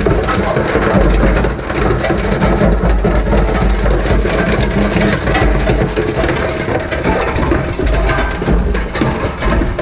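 Industrial shredder breaking up a brick of plastic: a dense, continuous crackle and crunch of plastic being torn apart over the machine's low rumble and hum.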